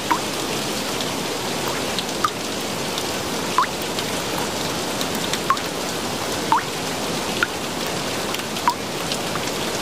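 Steady rain hiss with single water drops plinking every second or so, each a short note falling in pitch.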